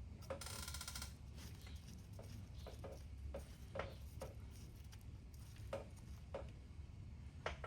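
Faint scattered clicks and light taps of small metal shift-linkage parts being handled and worked loose by hand, with a brief rattly scrape under a second in.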